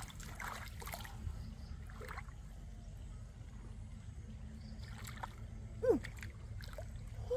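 Shallow river water trickling and sloshing as hands work among submerged rocks, with small scattered splashes. About six seconds in, a short steeply falling vocal "ooh" from a woman's pursed lips, and a smaller one near the end.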